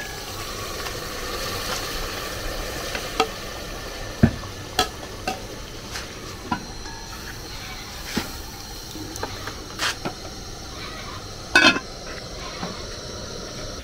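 A spoon stirring food sizzling in a cooking pot, with irregular knocks and clinks of the spoon against the pot and a louder clatter near the end.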